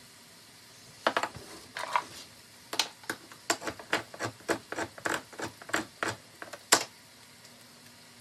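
Hand-crank can opener being clamped onto a tin can and turned around its lid, a run of sharp clicks about three a second that ends with one loud click.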